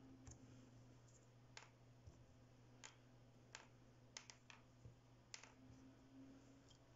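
Light, irregular clicks of plastic airsoft BBs knocking against each other and against a 3D-printed plastic bearing race as they are fitted in one at a time, about ten clicks in all.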